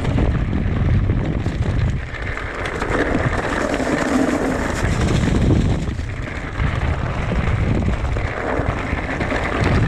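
Wind buffeting the microphone on a moving e-mountain bike, a loud uneven rumble that swells and drops every second or two, with the bike rattling over a rough trail.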